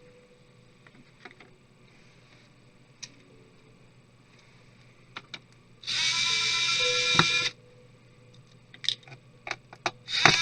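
Small electric screwdriver running in a short burst of about a second and a half, a steady high whine, driving out a laptop case screw; it starts again just before the end. Light clicks of handling come and go between the runs.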